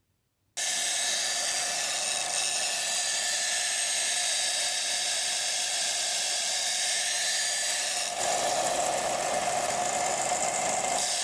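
A power grinder grinding the cutting edge onto a steel knife blade: a steady grinding hiss with a faint hum. It cuts in abruptly about half a second in, and its tone shifts and grows fuller about eight seconds in.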